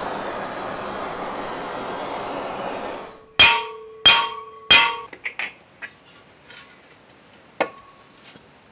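A gas torch hisses steadily for about three seconds. Then a hammer strikes three hard, ringing blows on an old spring shackle, driving the new primary pinion into the Series 1 Land Rover gearbox bell housing. Lighter taps follow, and there is one more knock near the end.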